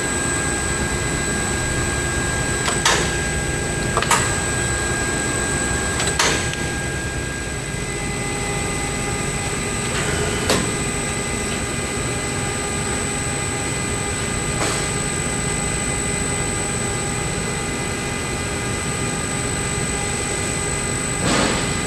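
Tauring Delta 50 three-roll angle bending machine running unloaded, a steady mechanical hum and whine, with several sharp clicks spaced a few seconds apart as its controls are worked. The pitch of the whine shifts about a third of the way in.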